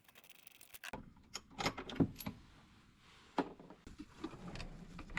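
Light metallic clicks and taps of hand tools working on snowmobile engine parts, half a dozen scattered strikes.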